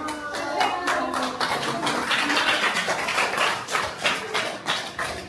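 Hands clapping, many quick claps that thicken into dense applause around the middle, with voices heard near the start.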